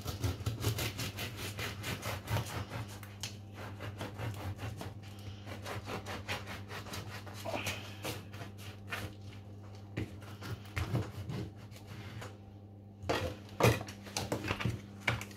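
Serrated bread knife sawing lengthwise through a crusty loaf, a quick repeated rasping of the blade through the crust. The sawing stops near the end, and a few knocks follow.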